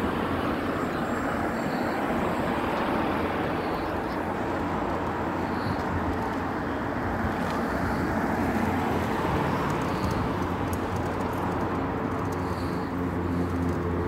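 Street traffic: vehicle engines running close by, with a steady engine hum building over the last few seconds as a heavy vehicle nears.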